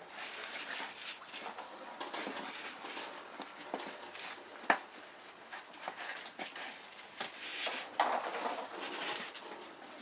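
A sleeping dog snoring, its noisy breaths swelling and fading unevenly. A single sharp click falls about halfway through.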